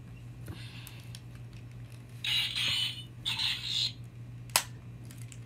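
Hard plastic toy parts being forced together: two short rasping scrapes a couple of seconds in and a sharp click near the end, over a steady low hum.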